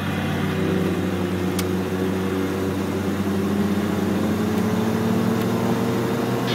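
Car engine heard from inside the cabin, pulling steadily as the car accelerates up a freeway on-ramp, its note rising slowly.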